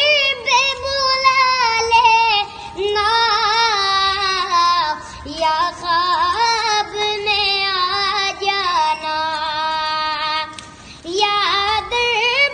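A boy singing a naat, an Urdu devotional song, solo in long, wavering held notes, with short breaks between phrases.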